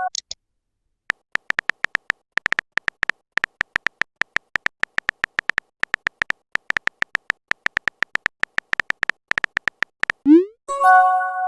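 Phone-keyboard typing sound effect: a fast, irregular run of short tapping clicks for about nine seconds, then a rising pop and a short message-notification tone near the end.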